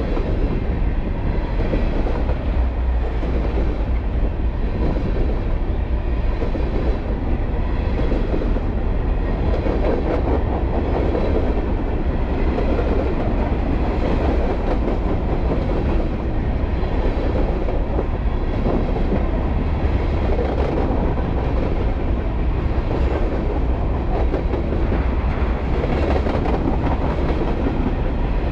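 Freight train of covered hopper cars passing close by at speed: a steady, loud rumble of steel wheels on rail, with a regular clacking.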